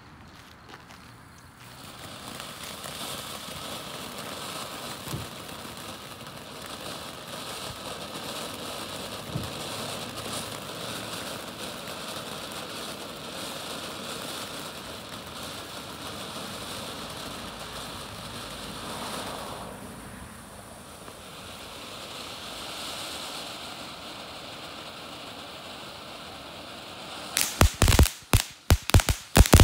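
Ground fountain firework spraying sparks with a steady hiss, easing briefly about two-thirds of the way through; near the end it breaks into a rapid string of loud crackles and pops.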